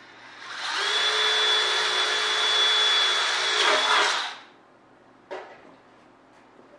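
Cordless drill running steadily for about three and a half seconds with a high whine, drilling a rivet hole through an aluminium wing rib and spar. A short click follows about a second after it stops.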